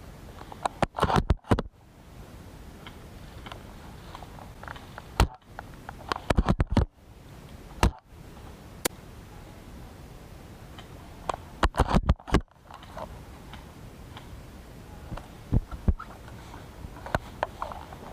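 Sharp clicks and knocks in several quick clusters (about a second in, around six to seven seconds, and around twelve seconds), with single clicks in between, over a steady low hiss: handling of a spring-powered airsoft sniper rifle, a Tokyo Marui VSR-10, heard through its mounted camera.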